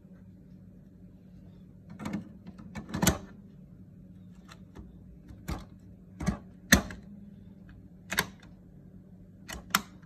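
Hard plastic clicks and snaps from the print-head carriage of a Canon Pixma G3420 as the print heads are seated and the blue locking covers pressed down into place. The clicks come irregularly, about eight of them, the loudest about two-thirds of the way through.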